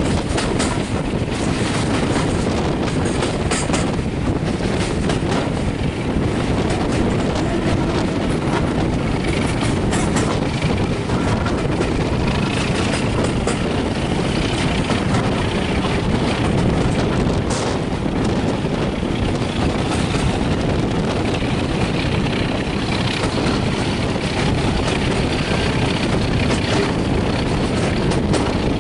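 Diesel-hauled passenger train, Class 37 locomotive 37714 at the head, running at speed as heard from an open carriage window: a steady rumble of wheels on the rails and rushing air. A faint whine rises midway.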